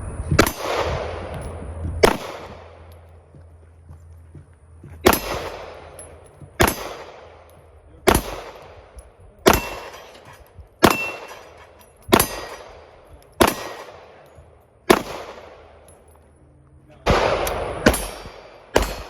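Glock 48 9mm pistol fired at a slow, steady pace, about a dozen shots roughly one and a half seconds apart, each with a short echoing tail. A couple of shots are followed by a faint ring from struck steel targets, and near the end the shots come a little closer together.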